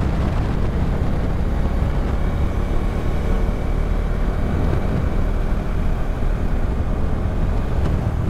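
Motorcycle running steadily while riding, its engine drone under a constant rush of wind and road noise.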